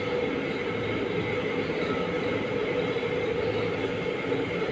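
Steady rumbling background noise with no voices, heard during the silent prostration of a congregational prayer.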